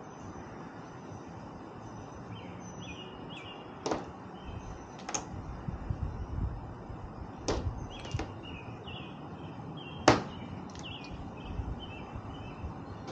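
Sharp knocks and clanks of an aluminum ladder rack being handled on a truck topper roof, about five separate hits with the loudest near the end, over a steady outdoor hiss with birds chirping.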